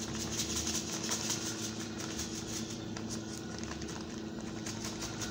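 A thin clear plastic bag crinkling and rustling in the hands, in many small crackles, over a steady low hum.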